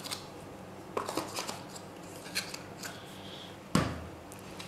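Scattered small clicks and rubs of tools and rubber sheets being handled and put away on a table, with one sharper knock near the end as something is set down.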